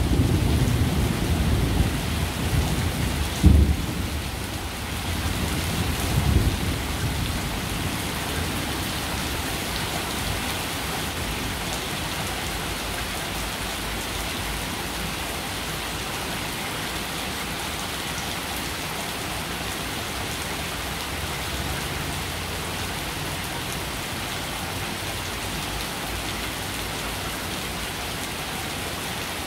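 Heavy rain falling steadily, with thunder rumbling during the first several seconds and two sharper claps about three and a half and six seconds in; after that only the even hiss of rain.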